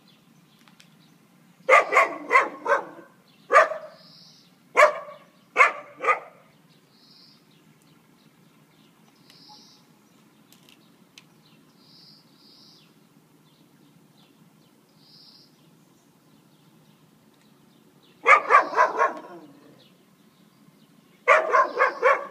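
Dog barking in play, in short runs: a quick volley and several single barks in the first six seconds, a long pause, then two more volleys of rapid barks near the end.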